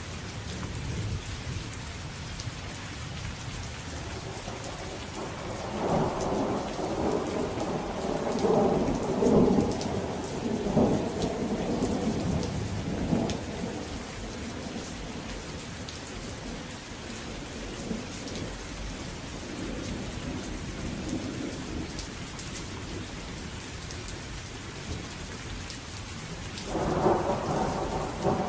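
Steady rain with thunder: a long rolling rumble builds about five seconds in and dies away by about fourteen seconds, and another clap breaks in sharply near the end.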